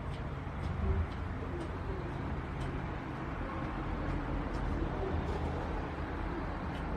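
Steady low rumble of outdoor background noise, with a few faint short low notes and light ticks about once a second.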